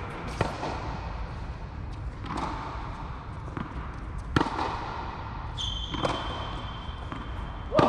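Tennis ball rally: sharp pops of rackets striking the ball and the ball bouncing on the court, about one every two seconds, echoing in a large domed indoor hall.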